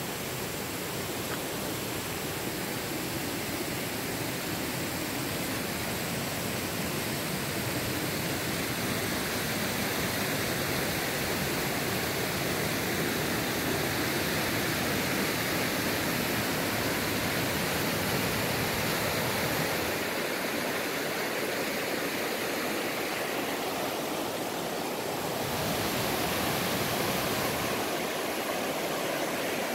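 Shallow, rocky river rushing over stones: a steady hiss of running water whose tone shifts slightly a few times.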